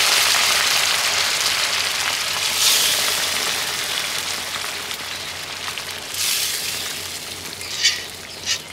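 Cooked beans frying in very hot lard in a stainless steel skillet, the sizzle dying down steadily after they go into the fat, with a few sharp crackles in the last few seconds. This is the first stage of refrying beans.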